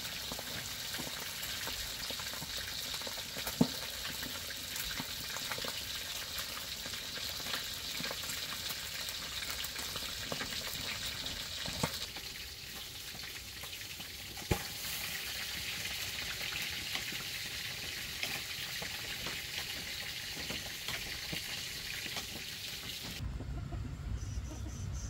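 Food frying in a pan, a steady sizzle and crackle with a few sharp knocks. Near the end it cuts off abruptly to a low rumble.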